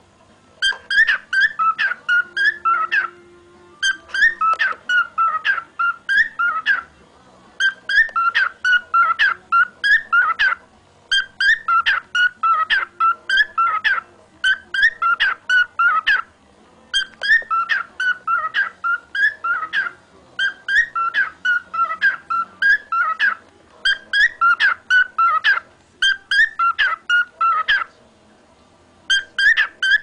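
Male cockatiel singing his learned song, a chant the owner renders as "Go Go Go Go... Coco-chan, Cock-o-chan-chan cha-chan-chan". It comes as a rapid run of short notes in phrases of two to three seconds, repeated about ten times with brief pauses between.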